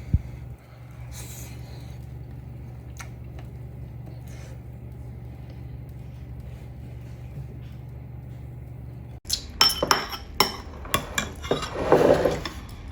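A steady low hum with a few faint ticks, then, after a sudden break about nine seconds in, utensils clinking, knocking and scraping against dishes, loudest near the end.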